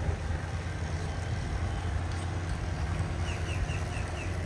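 Wind buffeting the microphone as a steady, rough low rumble. From about three seconds in, a bird gives a run of short, falling chirps, about three a second.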